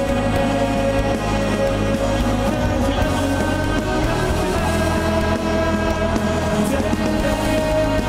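Live metal band playing loudly: distorted electric guitars hold long chords over bass and drums in a dense, unbroken wall of sound.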